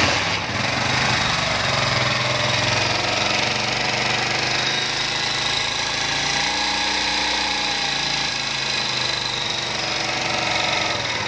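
Honda CD70's 70cc single-cylinder four-stroke engine idling steadily, its pitch wavering slightly midway. The mechanic says this engine's oil pump is not sending oil to the cylinder head.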